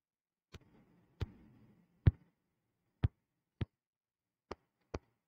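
Seven sharp clicks or taps at uneven intervals, roughly one every half second to second; the loudest comes about two seconds in, and a faint rustle follows the first two.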